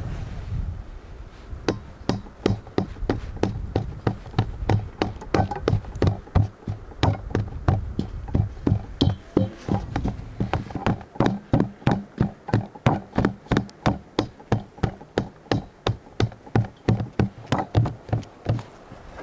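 A thick wooden pole pounding meat in a stainless steel bowl, like a pestle. The dull knocks start about a second and a half in and settle into a steady beat of about three a second, stopping shortly before the end.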